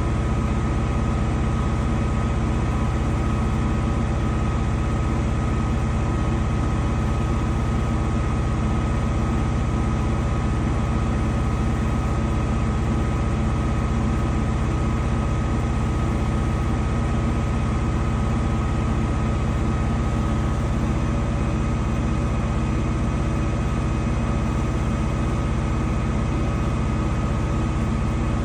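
Danube 20 kg washing machine running steadily: an even, unchanging machine hum with several steady tones over a low rumble.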